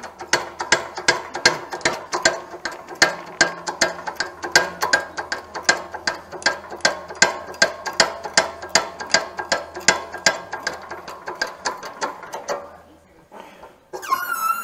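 A ratchet clicking rapidly and evenly, about four metallic clicks a second, as the press brake is worked down by hand on thin sheet metal. The clicking stops shortly before the end, and a brief high-pitched squeal follows.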